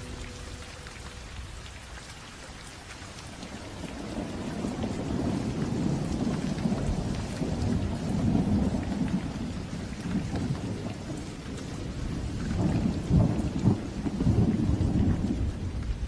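Thunder rumbling over steady rain. The rumble builds from about four seconds in and is loudest near the end.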